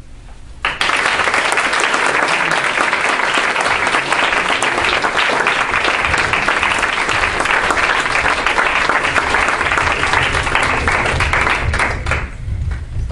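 Audience applause, dense clapping that starts suddenly under a second in, holds steady, and stops sharply near the end.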